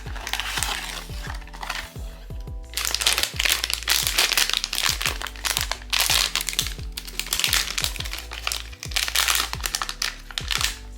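Blind-box packaging wrapper being crinkled and crumpled by hand, a loud, dense crackle that pauses briefly between about two and three seconds in. Background music plays underneath.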